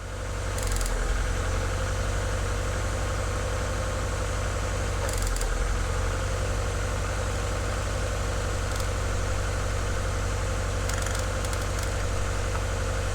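1996 Mazda Miata's 1.8-litre four-cylinder engine idling steadily with a misfire. Brief clicks come about a second, five seconds and nine seconds in, and twice more near the end. The engine note dips about a second in and again about five seconds in, as spark plug wires are pulled one at a time to find the misfiring cylinder.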